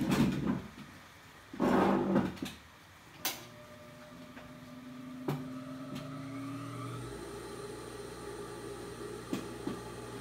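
Rustling and a knock as the camera is handled and moved. Then a click and a steady electric hum from the motor of an industrial sewing machine, switched on and idling without stitching.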